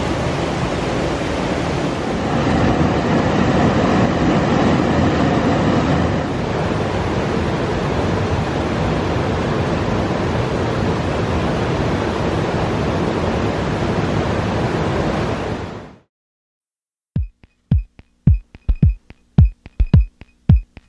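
River water rushing, a loud steady noise, which cuts off suddenly near the end. After a moment's silence, music starts with a run of sharp evenly spaced beats.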